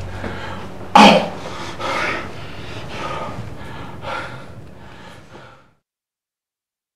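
A man's ragged, sobbing breaths: a sharp loud gasp about a second in, then shaky breaths roughly once a second, growing fainter until they die away.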